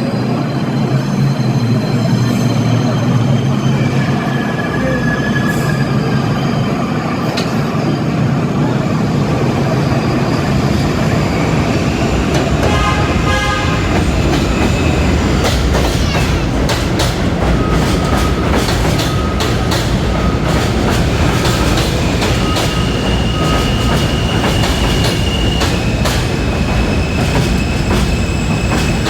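R160 subway train pulling into the station: a steady rail rumble that grows heavier partway through, wheels clicking over rail joints, and thin high wheel squeals coming and going in the second half as it slows.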